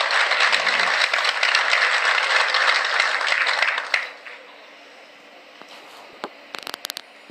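Audience applauding, a dense crackle of many hands clapping that dies away about four seconds in. A quick run of sharp clicks follows near the end.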